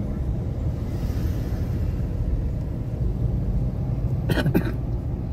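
Steady low rumble of a car's engine and tyres heard from inside the cabin as it drives slowly, with a brief sharp noise a little over four seconds in.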